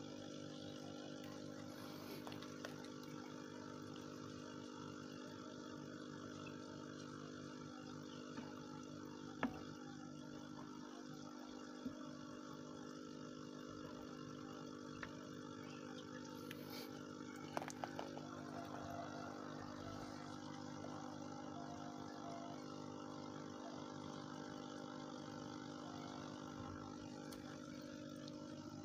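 Aquarium air pump humming steadily, with the faint fizz of air bubbling from the airstone. A few short knocks stand out about ten and twelve seconds in, and a quick cluster of them about two-thirds of the way through.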